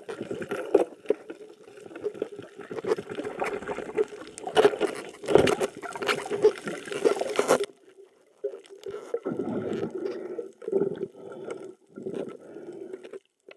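Underwater gurgling and bubbling with many sharp knocks and scrapes, over a steady low hum. It cuts out briefly about eight seconds in and again near the end.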